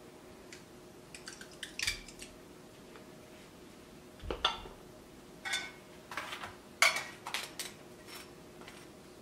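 Scattered light clicks and clinks of kitchen utensils against dishes, with a squeeze bottle of mayonnaise being squeezed over food and metal tongs being handled.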